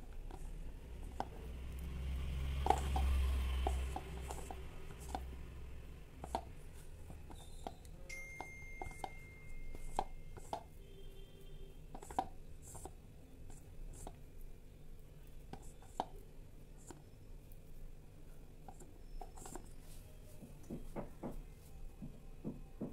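A hand mixing thick gram-flour batter in a steel bowl: soft, irregular wet taps and light clicks against the bowl, with a low rumble in the first few seconds and a faint steady high tone for about three seconds near the middle.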